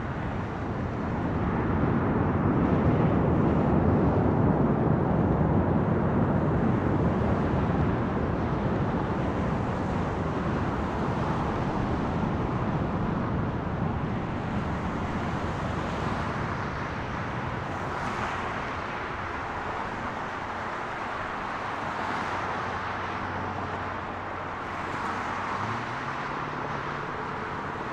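Jet engine roar from airliners on the runway: an Airbus A330 rolling out after touchdown and a departing widebody jet at takeoff power. The roar swells about two seconds in and then slowly fades.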